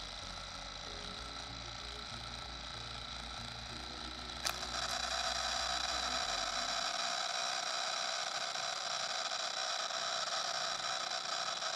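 Small DC motor spinning a plastic propeller, giving a steady whirring hiss. About four and a half seconds in there is a sharp click and the whir gets louder.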